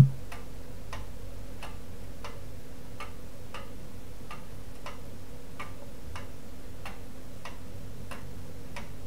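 Steady, even ticking, about three ticks a second, over a faint steady hum.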